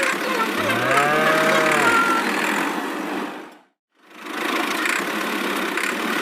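A cow mooing once, a long call that rises and then falls in pitch, over a steady noisy din. The din cuts out briefly a little past halfway through, then returns.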